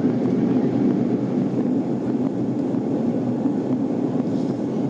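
Steady cabin noise of an Airbus A340 airliner in descent: an even, low drone of engines and airflow heard from inside the passenger cabin.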